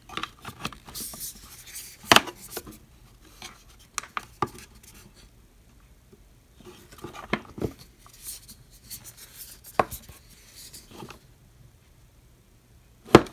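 Handling of a small plastic earbud charging case and its packaging: scattered clicks and taps with light rustling between them. The sharpest click comes about two seconds in, and it goes quieter near the end.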